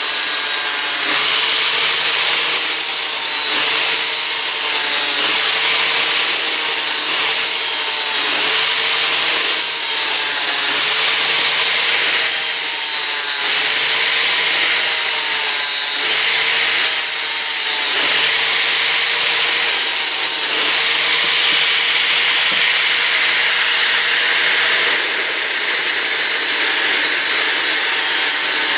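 Handheld power tool stripping the painted finish off a steel pipe, running continuously with its motor pitch sagging and recovering every second or two as it is pressed into the metal.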